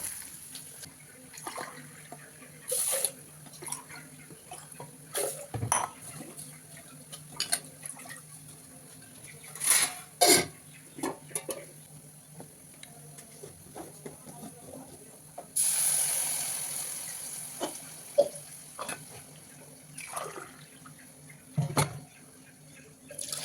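Kitchen cooking sounds: pots, pans and utensils clattering and clinking at irregular moments over a faint steady hum. About two-thirds of the way through, a sudden hiss starts and fades away over about two seconds.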